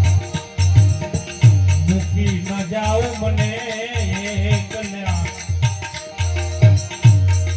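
Live devotional bhajan music: repeated deep hand-drum strokes under steady jingling percussion, with a wavering sung or played melody rising in the middle.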